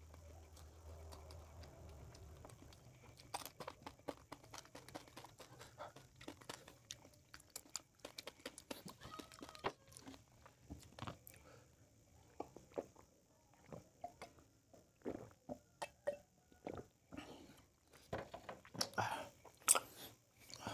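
A person chewing and crunching food with the mouth close to the microphone: irregular short crunches and mouth clicks, growing louder and closer together near the end.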